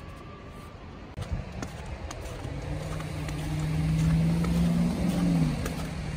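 A motor vehicle passing on the street: a low engine hum swells over the middle seconds, loudest about four seconds in, and dips in pitch as it fades, over a steady traffic rumble with a few faint clicks.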